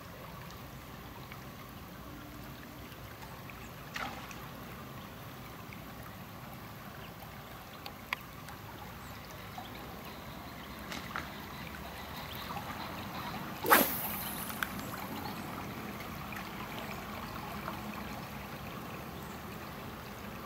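Steady, gentle sound of river water, with a few scattered short clicks and one louder sharp knock about two-thirds of the way through.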